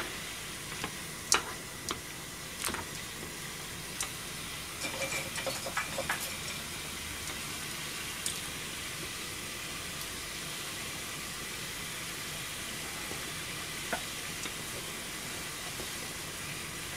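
Bok choy blanching in a shallow pan of water at a full boil: a steady bubbling hiss, with metal tongs and chopsticks clicking against the pan several times in the first six seconds and a couple of times later.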